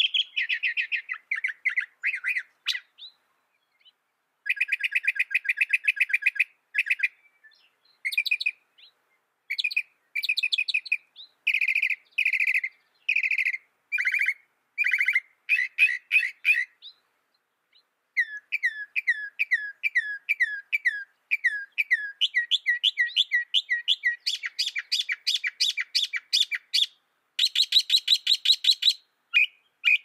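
Northern mockingbird singing: a long series of varied phrases, each built from one note repeated several times in quick succession. The song breaks off briefly about three seconds in and again past the middle.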